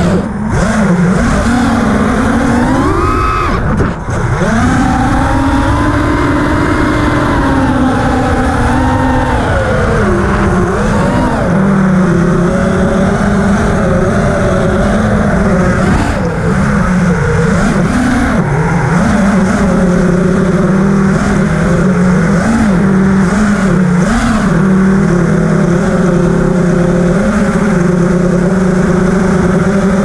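FPV quadcopter's electric motors whining, the pitch swooping up and down with the throttle for the first ten seconds or so, then holding a fairly steady tone with small wobbles.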